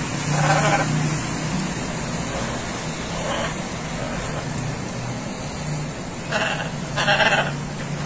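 Blue-and-gold macaw giving short, hoarse calls about four times, the last two near the end loudest, over a steady hum.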